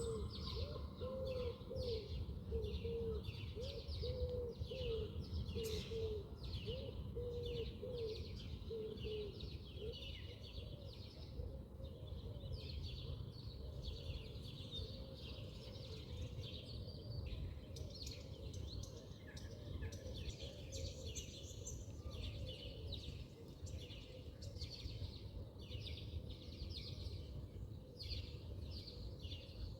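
Birds chirping and calling throughout, with a run of short, low, repeated calls at about two a second for the first ten seconds, over a steady low rumble.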